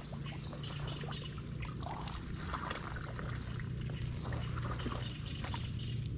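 Water splashing and trickling in short, irregular bursts over a steady low hum.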